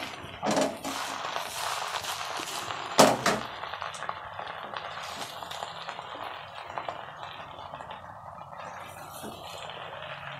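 Fish and brinjal frying in oil in a nonstick wok, with a steady sizzle, stirred with a wooden spatula that scrapes and knocks against the pan. There are a few sharp knocks, the loudest two about three seconds in.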